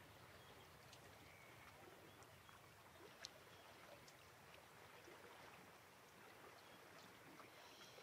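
Near silence: faint outdoor background hiss, with a few faint high chirps and one soft click about three seconds in.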